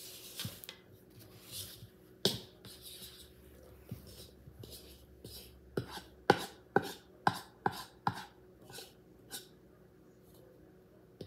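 A fork knocking and scraping against a mixing bowl as crumbly dough is stirred: a few scattered taps, then a run of sharp clinks about two a second in the second half.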